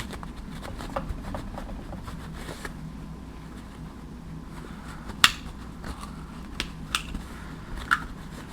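Scattered light clicks and taps from small hard objects being handled, the sharpest about five seconds in, over a low steady hum.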